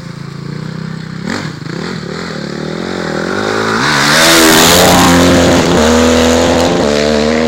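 Small 45cc pit bike engine revving. Its pitch wanders, climbs from about three seconds in, and is then held high and loud, dipping briefly once.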